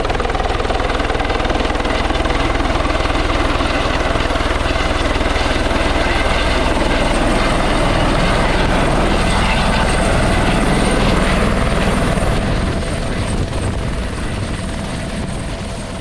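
Helicopter with a shrouded fenestron tail rotor hovering low and setting down on grass. Its rotor and turbine run loud and steady, then ease off a little in the last few seconds as it settles on its skids.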